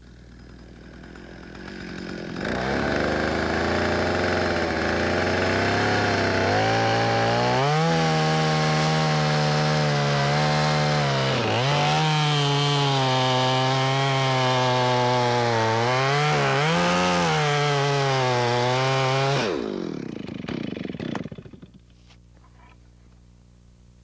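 Chainsaw cutting the back cut of a tree felling. The saw starts up about two seconds in and climbs to high steady revs, and its pitch dips briefly twice as it labours in the cut. Near the end the throttle is released and the engine runs down.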